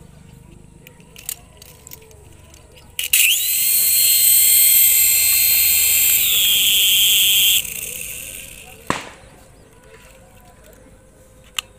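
Toy RC helicopter's small electric motors starting suddenly and spinning its twin rotors with a loud, high whine. The pitch steps down a little partway through, then the motors cut out and the whine dies away as the blades spin down. Two sharp clicks follow.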